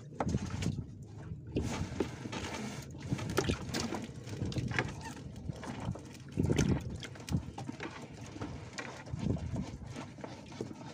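A fishing net being hauled into a small boat by hand: uneven rustling and small knocks against the boat, over a low rumble that swells and fades. One sharp click comes right at the start.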